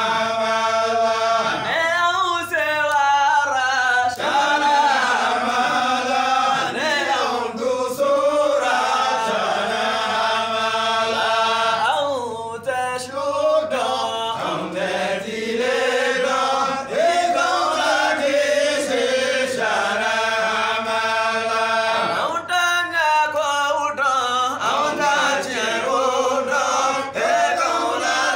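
Several men chanting a Sufi devotional song together, voices only, in long sung lines that dip briefly about halfway through.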